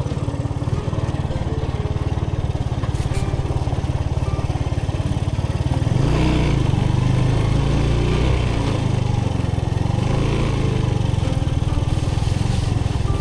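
VF125 motorcycle engine running at low speed as the bike rolls slowly along, heard from the rider's seat; it gets louder about six seconds in.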